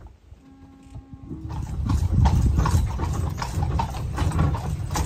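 Horse's hooves clip-clopping on a paved road as it pulls a buggy, starting about a second and a half in.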